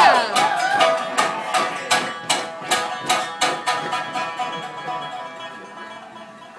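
Live plucked string instrument playing a steady pattern of notes, about three strokes a second, growing gradually quieter. A sung note ends just as it begins.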